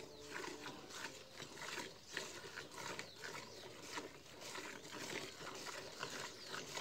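Cow being milked by hand: squirts of milk hitting a steel pail in a steady rhythm, about three a second.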